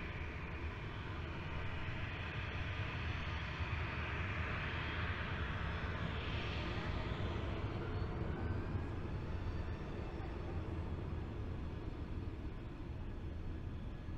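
Distant jet engines of a Boeing 737-800 on the runway: a steady low rumble and hiss that swells in the middle, with a faint rising whine in the second half.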